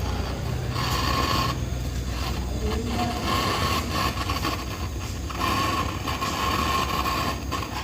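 Repeated scraping or rubbing strokes, each lasting about a second, over a steady low hum.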